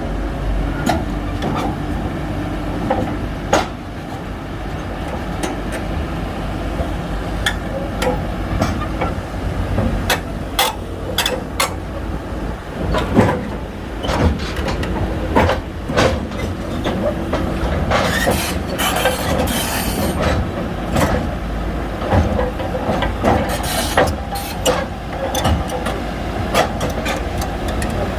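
Shantui crawler bulldozer working, its diesel engine running steadily under frequent sharp clanks from the steel tracks. A few seconds of hiss come about two-thirds of the way through.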